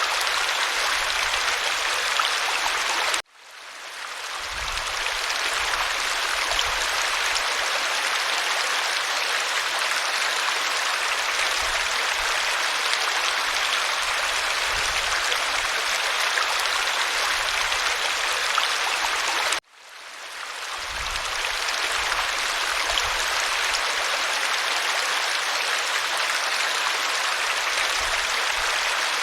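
Steady rushing of water falling from a waterfall. Twice the sound cuts out abruptly and fades back in over a second or two.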